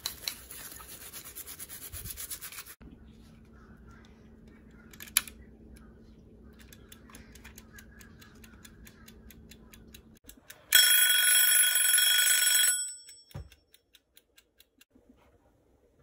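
Rubber-gloved hands scrubbing a leather bag in soapy water, then a mechanical wind-up kitchen timer ticking steadily and its bell ringing loudly for about two seconds.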